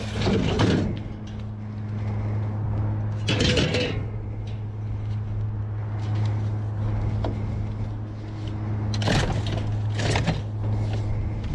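Clanks and rattles of a metal floor fan's wire guard and frame being handled and set into a plastic tub, in four short bursts: at the start, about three seconds in, and twice near nine and ten seconds in. A steady low hum runs underneath.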